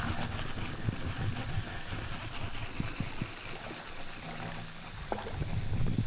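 Flowing stream water as a steady rushing hiss, with scattered low knocks and thuds over it.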